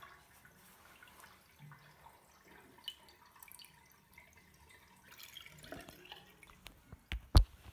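Faint water drips and small splashes in a filled sink as a soaked waterproof sock is pressed and lifted in the water. Two sharp knocks near the end, the second the louder.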